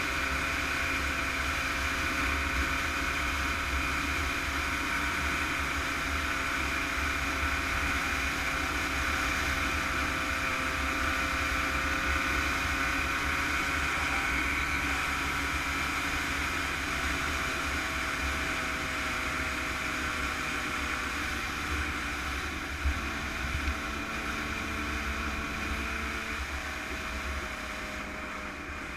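Yamaha YZ125 two-stroke single-cylinder engine running at fairly steady revs under way, with wind rumbling on the microphone. The engine pitch eases gradually lower over the last ten seconds or so.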